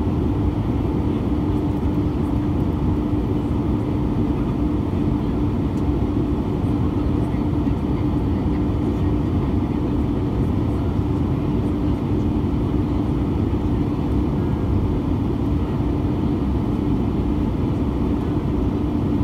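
Steady cabin noise of an Airbus A320 in flight, heard from a window seat over the wing: engine drone and rushing airflow with a steady low hum.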